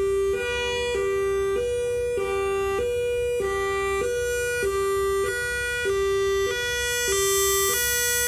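Whelen WS-3000 electronic outdoor warning siren sounding a hi-lo signal, switching back and forth between two pitches about every half second.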